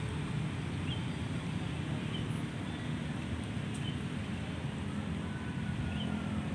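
Steady low outdoor rumble with a few faint, short bird chirps scattered through it.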